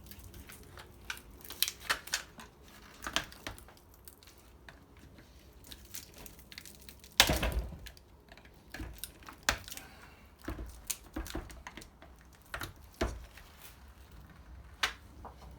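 Copper windings and insulation of a transformer being pulled and pried apart by hand: scattered clicks, scrapes and tearing, with one loud knock about seven seconds in.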